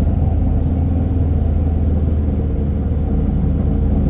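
Steady low drone of a city bus's engine and cabin noise, heard from inside the bus.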